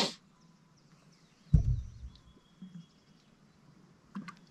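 A short rush of noise at the start, then a single dull thump about one and a half seconds in, over a quiet outdoor background with a few faint high bird chirps and whistles.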